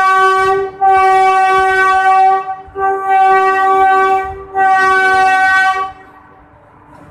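WAP-4 electric locomotive's horn sounding as the train pulls out: a single steady tone in four long blasts of about a second and a half each with short gaps. The first blast is already sounding at the start. After the last blast, about six seconds in, only the quieter rumble of the coaches rolling past remains.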